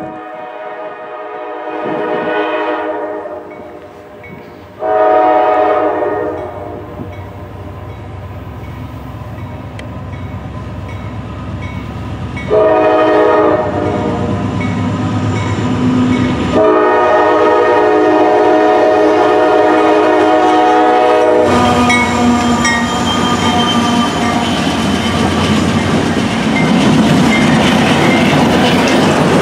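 Norfolk Southern diesel freight locomotive's air horn blowing for a grade crossing: a blast, a short blast, then a long one held for about nine seconds. When the horn stops, the locomotives and cars roll past close by, wheels clacking over the rail joints.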